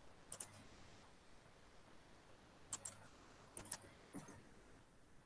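Clicking at a computer: four quick pairs of short, sharp clicks spread over a few seconds.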